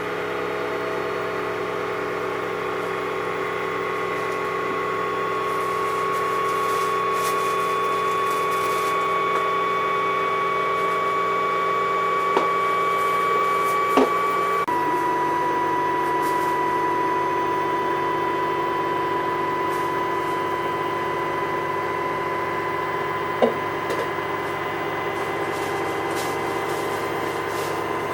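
Samsung washing machine running on its cotton cycle: a steady mechanical hum with a motor whine that slowly rises, then steps down in pitch suddenly about halfway, with a few faint clicks.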